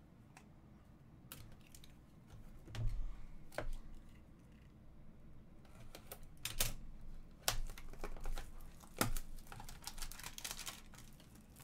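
Hands handling trading cards and opening a sealed Upper Deck Ultimate Collection hockey card box: scattered taps, clicks and crinkles of plastic wrap and cardboard, coming more often in the second half.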